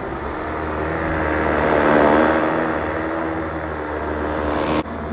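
Shark Detect Performance Lift-Away upright vacuum running, a steady motor hum and whine with the rush of suction, growing louder about two seconds in and dipping sharply just before the end.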